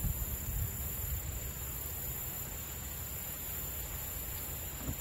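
Steady outdoor background noise: a low, uneven rumble and a constant high hiss, with a few soft bumps in the first second.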